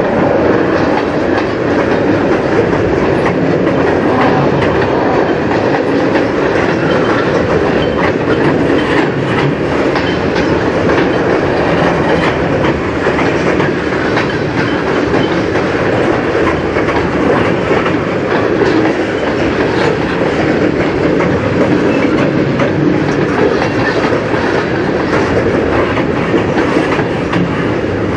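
Freight train of tank cars rolling past close by: a loud, steady rumble of steel wheels on rail, with faint scattered clicks.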